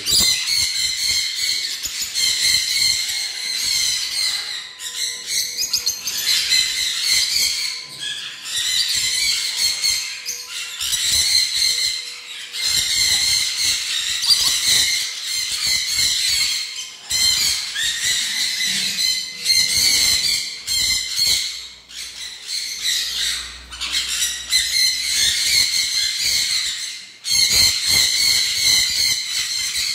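A roomful of small parrots, conures and lorikeets, calling over one another in a continuous din of shrill squawks and screeches, with short lulls a little past the middle.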